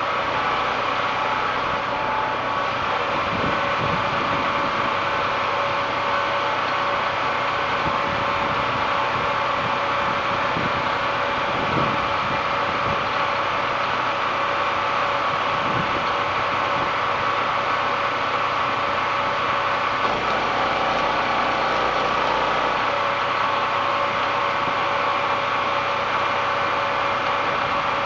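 Small portable generator engine running steadily at a constant speed.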